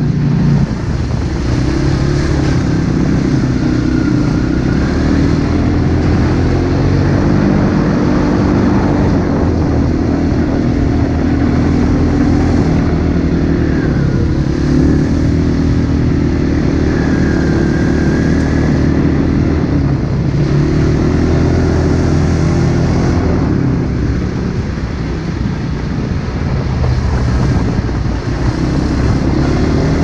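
Dirt bike engine running on a trail ride, its pitch rising and falling with the throttle.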